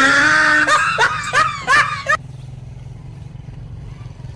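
A person laughing for about two seconds in several short rising bursts, then breaking off, leaving only a low steady rumble.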